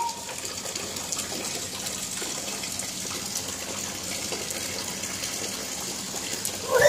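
Steady rain falling on a wet concrete rooftop: a continuous, even hiss of water.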